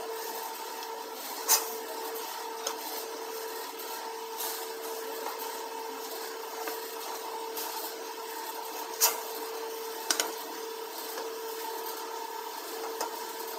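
Round duct elbow making machine running with a steady motor hum while a sheet-metal duct ring is turned through its seaming rollers, the metal rubbing as it feeds. A few sharp metallic clicks stand out, the loudest about a second and a half in and two more near the two-thirds mark.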